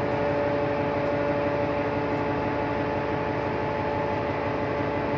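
Ship's machinery running steadily on deck: an even hiss with a constant hum made of several held tones.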